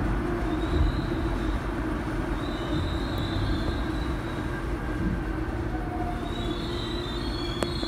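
Seoul Subway Line 5 train heard from inside the car: a steady running rumble and hum, with faint high wheel squeals coming and going. A sharp click comes near the end.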